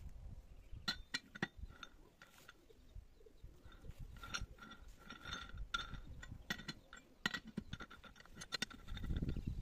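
Metal clicking and clinking as a T-handle chuck key is seated in a lathe chuck's key socket and turned, with a few sharper knocks and a low handling bump near the end.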